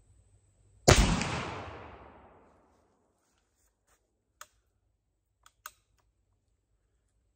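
A single shot from a black-powder percussion muzzleloading rifle about a second in, a sharp report that dies away over about a second and a half. A few seconds later, a few light clicks as the rifle is handled.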